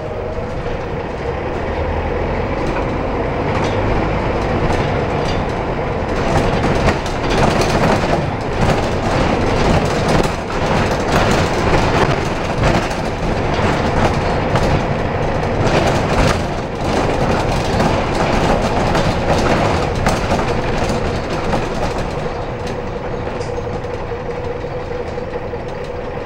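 Interior noise of an Optare Versa single-deck bus under way: steady engine and road noise with rattling and clattering from the cabin fittings, heaviest in the middle. A steady hum is heard at the start and again in the last few seconds.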